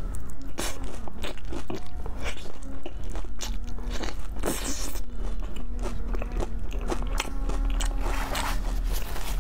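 Close-up eating sounds of biting into and chewing a crispy, sauce-glazed fried drumstick: a run of irregular crisp crunches.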